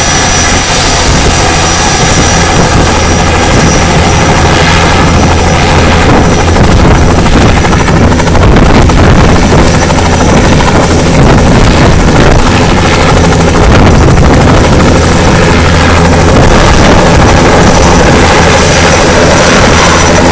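Bell 206B JetRanger III helicopter running on the ground with its rotor turning. It is steady and very loud, with a thin high turbine whine over the rotor noise.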